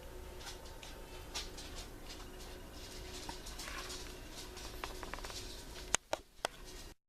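Light scratchy rustling and small handling noises in a small room, then three sharp clicks about six seconds in, just before the recording cuts off.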